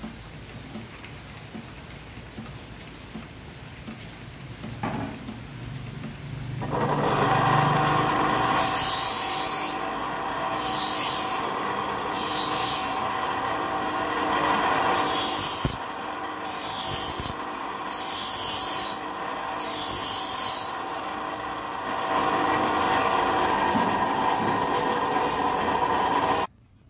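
Bench grinder running with a steady motor hum while a steel scissor blade is pressed against the grinding wheel to shape it into a knife. This gives seven separate harsh grinding rasps of about a second each.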